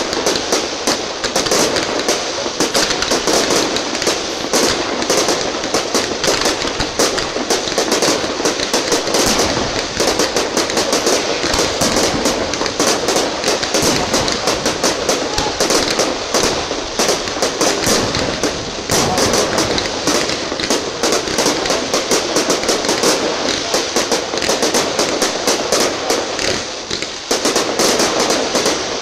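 Fireworks display: a loud, dense barrage of crackling and popping shell bursts, many a second, with no let-up.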